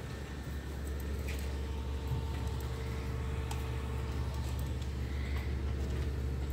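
Steady low hum of machinery in a computer lab, with a faint steady tone above it. A few faint, short clicks of keys or mouse buttons come through now and then.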